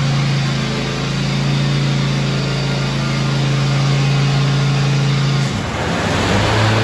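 Twin-cylinder Briggs & Stratton engine of a John Deere Z655 zero-turn mower running steadily. About five and a half seconds in, its note drops lower and turns rougher.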